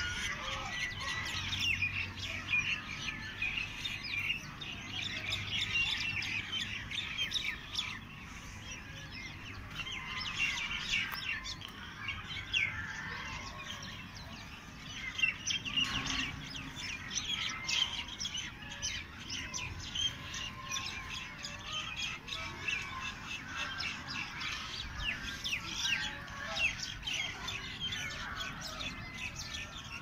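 Many small birds chirping and twittering at once: a dense, unbroken chorus of short high calls.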